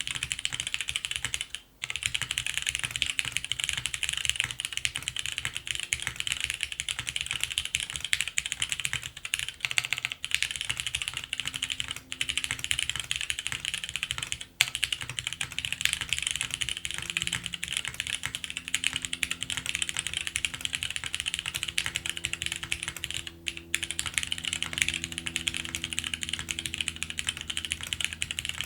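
Continuous fast typing on a top-mount custom mechanical keyboard with lubed and filmed Cherry MX Brown tactile switches, a polypropylene plate and GMK doubleshot keycaps, with a few brief pauses.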